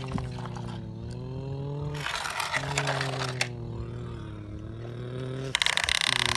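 A steady droning hum that slowly wavers in pitch, broken twice by short bursts of gritty scraping as plastic toy trucks are pushed through loose dirt.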